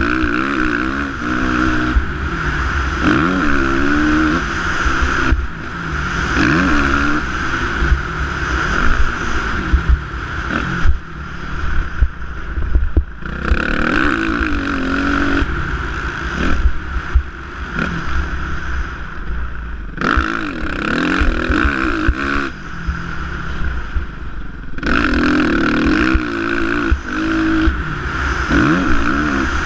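Suzuki motocross bike engine revving up and down as it is ridden over a dirt track. The pitch rises and falls every second or two, and the engine drops off briefly several times as the throttle is cut.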